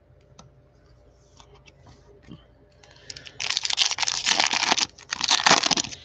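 Foil wrapper of a Panini Prizm basketball card pack crinkling loudly in gloved hands as it is torn open, in two bursts starting about three and a half seconds in. Before that, only light clicks from cards being handled.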